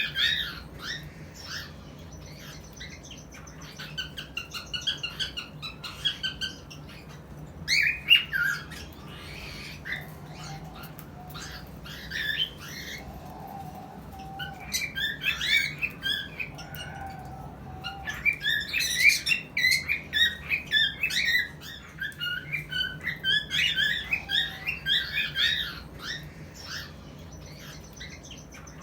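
Cockatiels chirping and squawking in rapid bursts of short calls, with quieter pauses between the bursts. A steady low hum runs underneath.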